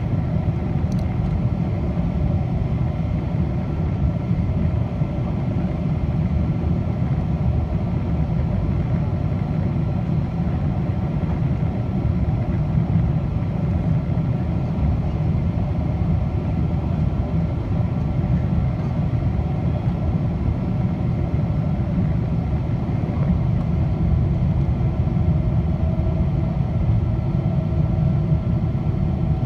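Steady low rumble of a Boeing 777-200's engines and rushing air, heard from inside the cabin beside the wing on final approach with the flaps extended.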